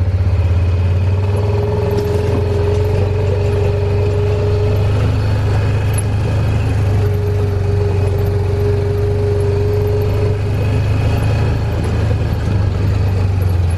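Side-by-side utility vehicle's engine running steadily under way, a low hum with a higher whine that comes in twice for a few seconds each.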